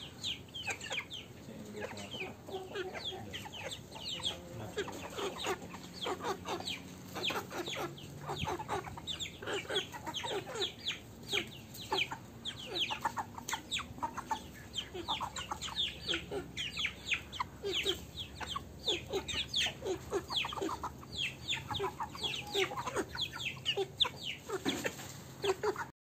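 Young Aseel Parrot Beak chickens clucking and peeping as they forage, many short falling calls overlapping, several a second.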